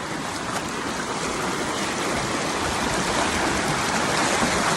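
Stream water rushing steadily, growing slowly louder.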